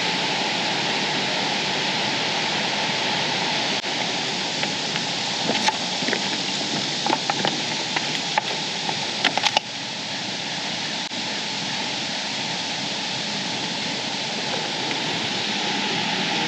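Steady rushing of a waterfall, an even hiss of falling water. A few light clicks sound in the middle, and the water sound drops slightly in level just after them.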